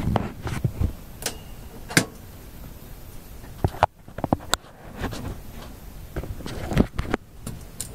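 Handling noise: scattered light clicks and knocks as a camera is moved close around a tube radio chassis and its wiring is touched, with a quick cluster of clicks about four seconds in.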